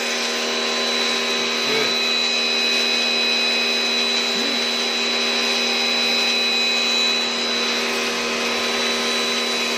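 Pressure washer running steadily with its motor and pump holding a constant whine, the water jet hissing as it sprays the concrete.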